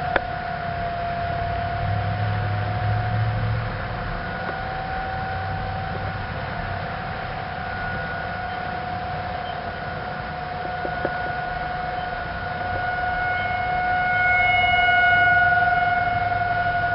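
Outdoor tornado warning siren sounding one long steady wail, its pitch nearly level, swelling slowly louder and softer and loudest near the end.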